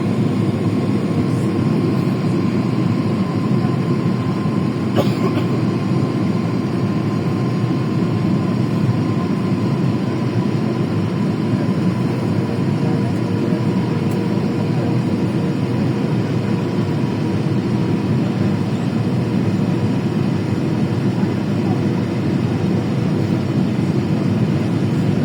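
Steady airliner cabin noise from inside the plane: a dull, even rumble of engines and airflow with a faint steady whine over it. One brief click comes about five seconds in.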